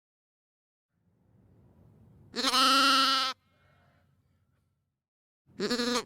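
Sheep bleating twice: one call about a second long, then a shorter one near the end.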